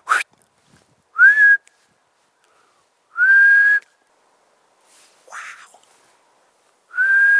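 A man whistling three single held notes of the same pitch, a couple of seconds apart, each sliding up briefly and then holding steady, with breathy hiss on the notes. A short breathy sound comes between the second and third notes.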